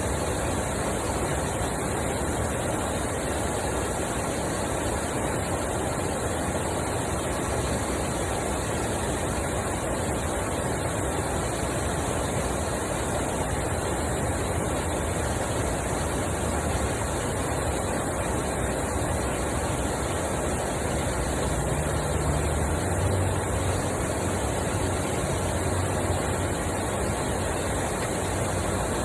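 Water rushing steadily over a small canal spillway, a constant hiss with no breaks. A low hum rises faintly over it about two-thirds of the way through.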